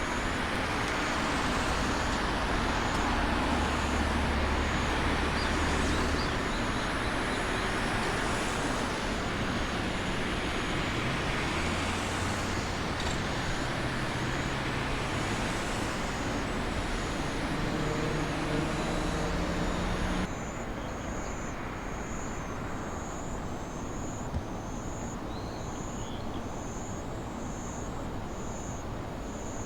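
An electric commuter train runs past with a steady rumble and a hum that rises in pitch as its motors work. About two-thirds of the way in the sound cuts abruptly to a quieter steady background with a faint, regular high chirping.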